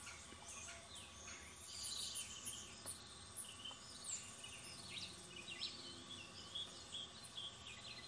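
Faint birdsong: many small birds chirping and calling over one another in short high notes.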